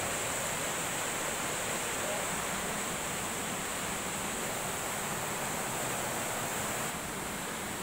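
Steady rushing of a swollen river in flood, fast brown water running high.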